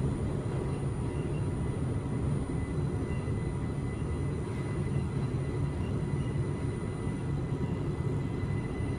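Steady interior running noise of a Linimo 100-series low-speed maglev train: a low, even rumble with a faint steady whine above it.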